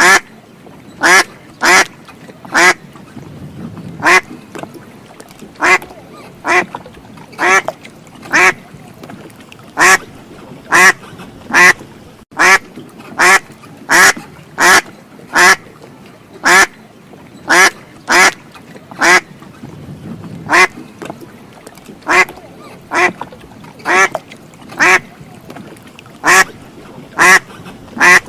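Duck quacking: a long run of loud single quacks, a little over one a second, with a couple of short pauses.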